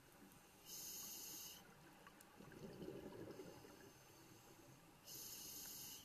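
Scuba diver breathing through a regulator, heard faintly through the camera's underwater housing. There is a hissing inhale about a second in, then a low rush of exhaled bubbles around three seconds in, then another hissing inhale near the end.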